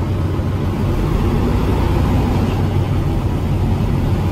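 Mercedes-Benz tour bus's diesel engine running with a steady low rumble as the bus drives slowly up the ramp into a ferry's bow door, getting a little louder toward the end.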